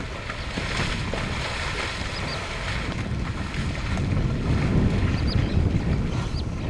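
Wind buffeting the microphone, a low rush that grows stronger about four seconds in, with a few short high bird chirps.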